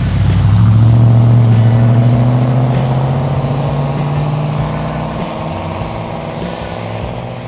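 A car engine droning loudly. It passes with a slight drop in pitch near the start and then slowly fades away.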